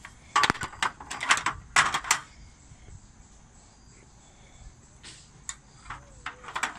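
Aluminium slatted roll-up tabletop of a folding camping table knocking and clattering against its metal frame as it is laid on. Quick clusters of knocks come in the first two seconds, then a lull, then a few more knocks near the end.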